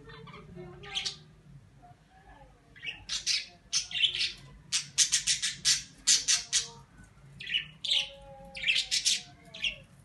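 A small pet Australian parrot giving short, harsh squawks and chirps: one call about a second in, then quick runs of several calls a second from about three seconds in.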